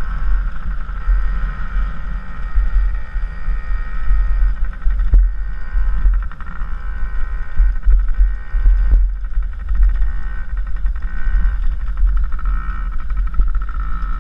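Dirt bike engine running as the bike rides across grass, its pitch rising and falling in places, under heavy wind buffeting on the helmet-mounted microphone. A few sharp knocks partway through.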